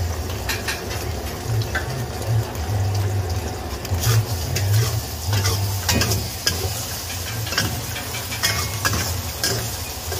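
Eggs sizzling in a hot metal wok while a metal spatula breaks up and scrambles them, scraping and knocking against the pan more often in the second half. A steady low rumble runs underneath.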